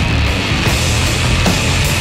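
Avant-jazz rock band playing a loud, dense instrumental passage with no vocals: drums hitting a steady beat over heavy bass.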